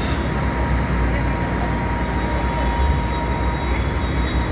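River ferry's engine running with a steady low rumble, a thin steady whine above it.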